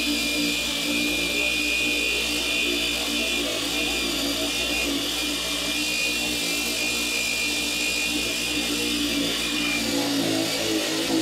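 Handheld electric sander running steadily against cured fairing compound on a fiberglass boat transom: a constant motor hum with a high sanding hiss.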